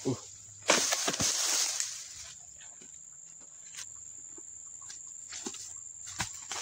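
A knock of a pole-mounted dodos chisel at the start, then a loud rustling scrape lasting about a second and a half. Near the end a short thud as a thrown oil palm fruit bunch lands, over a steady high insect drone.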